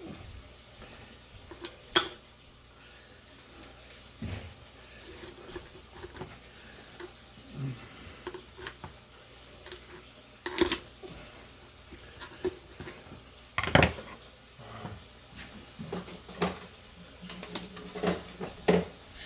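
Kitchen shears cutting through a raw turkey's rib bones as the bird is split, giving a handful of sharp cracks a few seconds apart with quieter handling of the bird between them.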